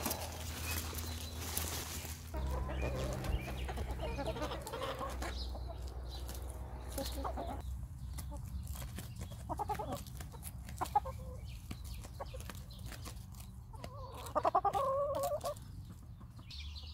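Backyard hens clucking on and off as they feed on silver beet leaves, with a louder run of clucks near the end. A rustling hiss fills the first couple of seconds.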